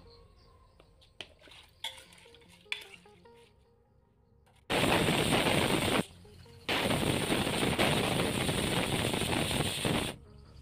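Pressure cooker whistling: steam hisses loudly out past the weight valve in two long blasts with a short break between, starting about halfway through. This is the sign that the cooker has come up to pressure. A few light clinks come before it.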